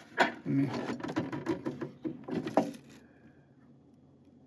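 Metal toolbox being handled, its parts knocking and rattling in quick succession, stopping about three seconds in.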